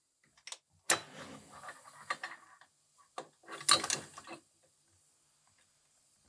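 Metal clicks and clatter of a Ford 94 flathead carburetor being handled and its parts fitted together, in two short bursts, about a second in and near four seconds in, then nothing.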